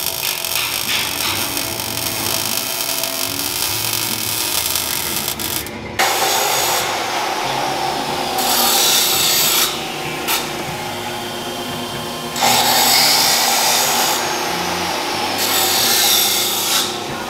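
Welding crackle on exhaust pipework for about six seconds, then a Huth hydraulic tube bender bending steel exhaust tubing: its hydraulics run steadily and grow louder in three stretches of one to two seconds each as the pipe is bent.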